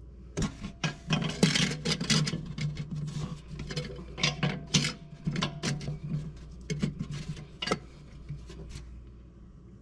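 Low-reverse clutch frictions and steel plates of a 200-4R automatic transmission clicking and clinking against each other and the case as a plate is set down and worked onto the stack by hand. The clicks come irregularly for about eight seconds, then die away near the end.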